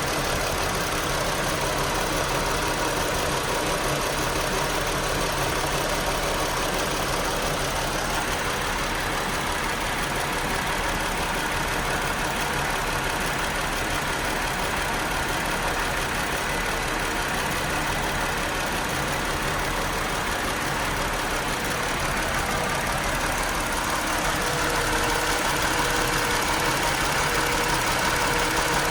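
Car engine idling steadily, growing a little louder about 24 seconds in.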